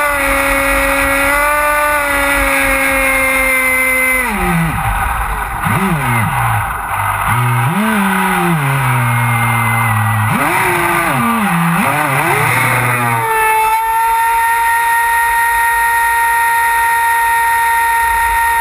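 High-pitched whine of an RC speedboat's brushless electric motor and drive under a spray of water. It holds steady, then drops and swoops up and down several times as the throttle is eased and opened, and about 13 s in it jumps to a higher steady whine at full speed.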